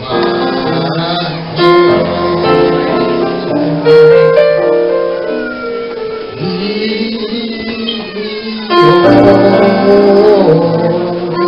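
A man singing into a microphone over keyboard accompaniment, holding long notes, with a long sliding phrase a little past the middle.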